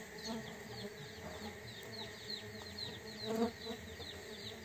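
Tetragonula biroi stingless bees buzzing as they fly around their hive box, swelling as one passes close a little after three seconds in.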